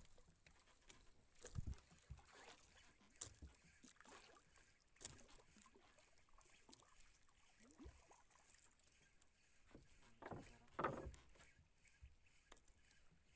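Near silence, broken by a few faint, separate clicks and knocks and a brief louder knock shortly before the end.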